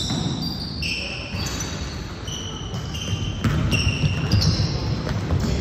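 Basketball game play on a gym court: sneakers squeak on the floor again and again in short, high-pitched squeals, over low court noise and a bouncing basketball. The noise gets louder about three and a half seconds in.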